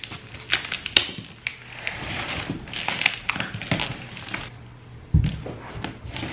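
Packing tape being picked at and peeled off a cardboard box, a run of irregular crackles and clicks of tape pulling away from the cardboard, then the tape strip being crumpled by hand. A dull thump about five seconds in.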